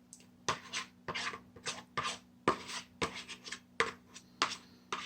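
A fork or spoon scraping food from a plastic meal tray in quick, uneven strokes, about three or four a second.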